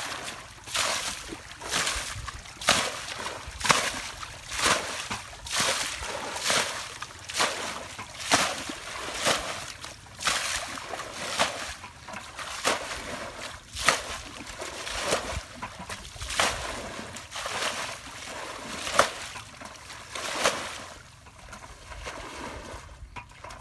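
Muddy paddy water being bailed out of a shallow channel with a bucket, one splash about every second. The splashing stops a few seconds before the end.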